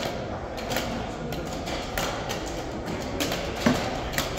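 Wooden chess pieces knocked down on the board and chess clock buttons slapped in a fast blitz time scramble: several sharp clicks and knocks, the loudest about three and a half seconds in, over a steady background hum of a hall.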